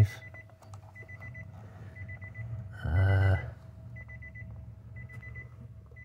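Electronic beeping in quick groups of pulses about once a second, the pattern of a car's warning chime. A faint steady tone runs underneath, and a short hum of a voice comes about three seconds in.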